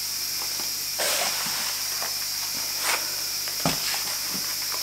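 Kitchen handling of a sheet of pre-rolled puff pastry on its backing paper: a paper rustle about a second in, a few light ticks and a short knock a little past halfway, over a steady background hiss.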